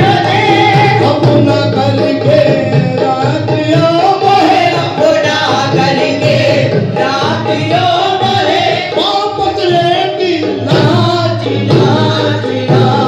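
Live qawwali: a lead singer and a group of male voices singing over harmonium accompaniment, amplified through microphones and a loudspeaker.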